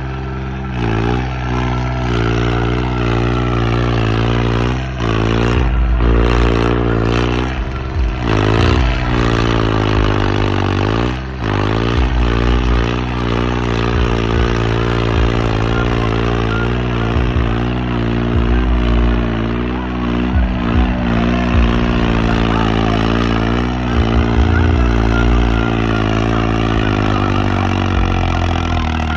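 Diesel engine of a modified tractor running hard under heavy load, its pitch repeatedly sagging and climbing back as the throttle is worked, with a few sharp knocks in the middle.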